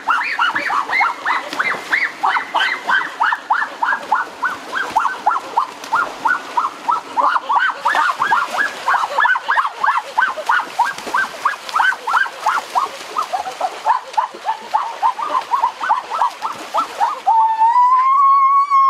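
Ducks calling in quick, repeated calls, about three or four a second, over water splashing as they are chased through a stream. Near the end the calls give way to one long drawn-out call.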